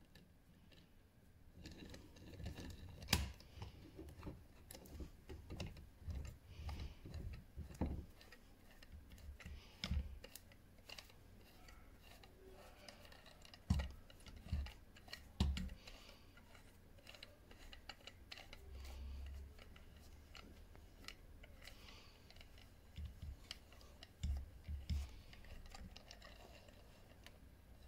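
Irregular small clicks, taps and scrapes of metal parts and hand tools being handled while a jammed screw thread is worked free, with a few sharper knocks about three seconds in and again around fourteen seconds in.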